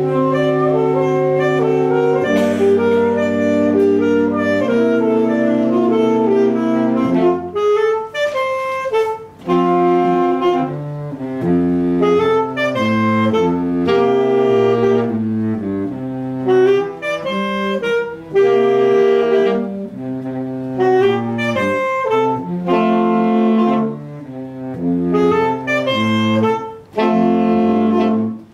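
Saxophone quartet playing a traditional jazz piece, several saxophones in harmony, all coming in together at the opening.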